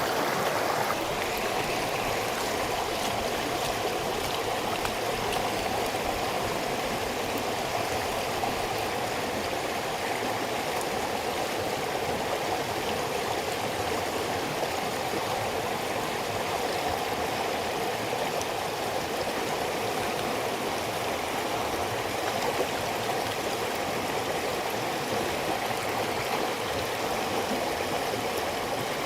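A rainforest stream flowing steadily, a continuous rush of running water.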